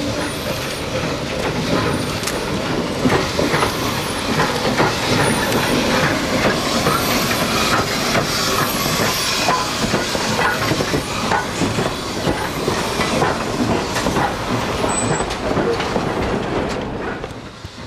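East Broad Top No. 15, a Baldwin 2-8-2 Mikado narrow-gauge steam locomotive, passing at close range with steam hissing, followed by freight cars whose wheels click and clank over the rail joints. The sound drops off near the end as the cars go by.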